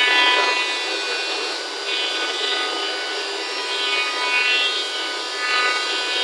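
CNC router's spindle running with a decorative profile bit routing grooves into a solid wood door panel: a steady rasping cutting noise under a whine of several steady tones. It swells a little a few times as the cut goes on.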